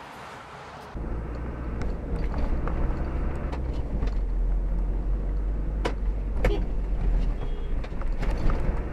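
Car cabin noise picked up by a dashcam: a steady low engine and road rumble that starts abruptly about a second in, with a few sharp clicks partway through.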